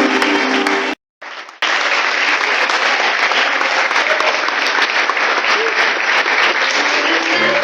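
Church congregation applauding: dense, steady clapping that takes hold about a second and a half in, with a few sustained musical notes under it at the very start.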